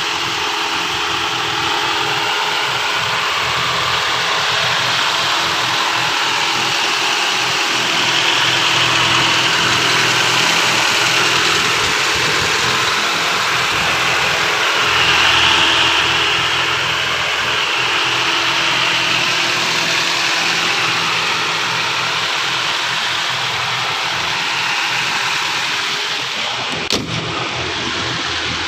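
Honda City car engine idling steadily, with a slight swell in level twice near the middle and a sharp click near the end. The seller calls the engine very smooth, with no noise from it.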